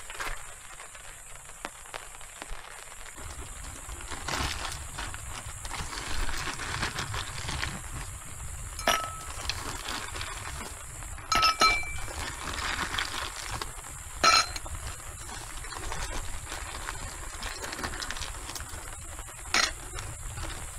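Several light clinks of hard objects, a few with a short ringing tone, against a steady background hiss.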